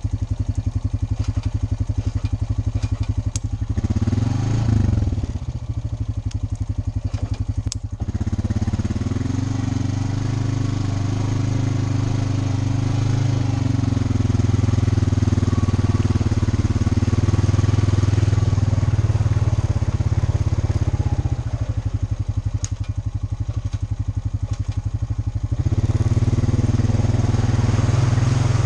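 ATV engine running while riding a muddy woodland trail, a steady drone whose note rises as the throttle opens about eight seconds in, drops back about twenty-one seconds in, and picks up again near the end. A few sharp clicks are heard over it.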